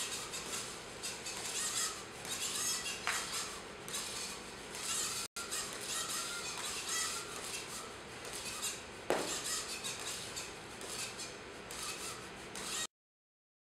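Small one-legged hopping robot's propeller thrusters and leg motor running with a steady raspy whirr, with two sharp knocks about three seconds and nine seconds in.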